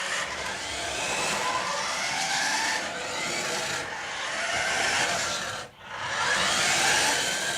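Toy remote-control car's small electric motor whirring, its pitch rising and falling as it speeds up and slows, with the wheels running over the floor; it cuts out briefly a little over five seconds in.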